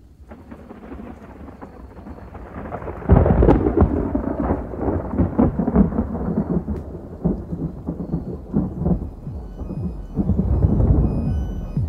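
Thunderstorm sound: rain fading in from silence, then a long roll of thunder breaking about three seconds in, with a second swell of rumbling near the end.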